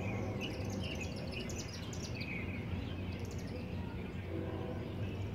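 Songbirds chirping in quick repeated calls over the low steady hum of a diesel locomotive. A train horn comes back in faintly about four seconds in.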